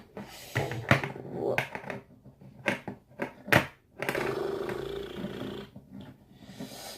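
Several sharp clicks and knocks of a plastic travel toothbrush case being handled, then a low, drawn-out growl-like vocal sound lasting over a second, starting about four seconds in.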